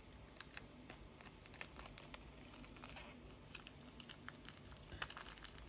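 Sticky tape being pressed and smoothed down over the backs of keycaps in a plastic keyboard frame: faint crinkling with scattered light clicks.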